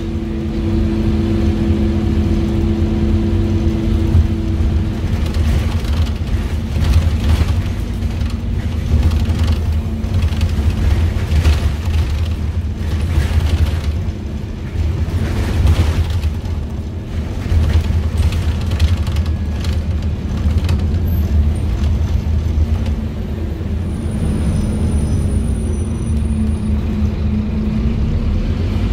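Scania OmniCity double-decker bus on the move, heard from inside: the Scania DC9 diesel engine and ZF Ecomat 5HP500 automatic gearbox give a steady low drone, with a whine that stops about five seconds in. Near the end the pitch rises as the bus picks up speed.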